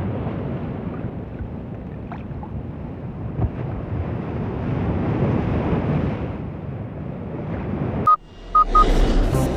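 Sea surf and wind rushing steadily on a beach. About eight seconds in it cuts off abruptly, and a few short electronic beeps and the start of an electronic music intro follow.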